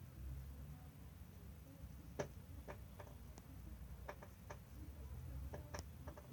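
A sleeping cat snoring faintly as a low rumble. From about two seconds in, about ten small, sharp clicks come at uneven intervals.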